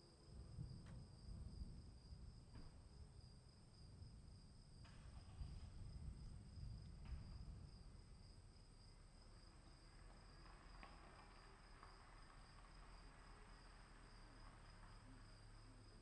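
Crickets chirring steadily in two high, unbroken tones, with a low rumble of distant thunder rising and dying away in the first half.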